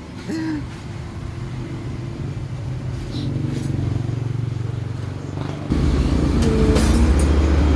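Motorcycle engine running with a steady low hum that suddenly becomes louder and deeper about two thirds of the way through.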